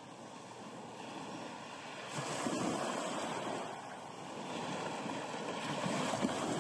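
Small waves breaking and washing up a pebble beach, the surf swelling louder twice.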